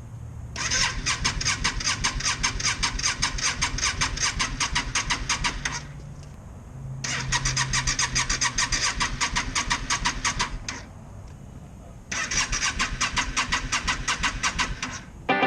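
Yamaha V Star 650's V-twin engine being cranked over by its electric starter in three long tries, each a fast, even chug, separated by short pauses. The engine never catches: it cranks but won't start.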